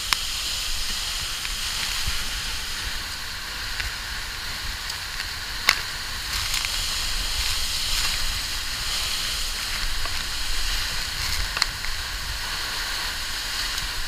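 Steady hiss and rush of a large, high-volume waterfall close by, with a low rumble beneath. A few sharp metallic clicks of via ferrata gear against the steel cable, the sharpest about halfway through.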